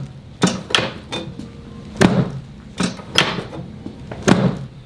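Chiropractic drop table: its padded section is pushed down by the chiropractor's thrusts and reset, giving about six sharp clacks roughly a second apart.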